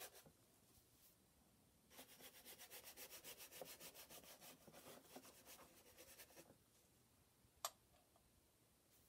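Faint scratchy brushing of a stiff-bristled chip brush scrubbing oil paint onto the painting surface in a run of quick back-and-forth strokes for a few seconds. A single sharp click follows near the end.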